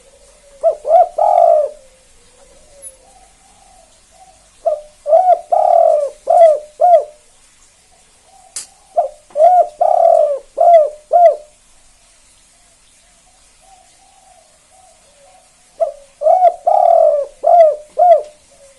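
Spotted dove (tekukur) singing its 'kuk 2' song type, the cooing song that keepers grade by its number of notes: four loud phrases of several quick coos each, with softer coos between them.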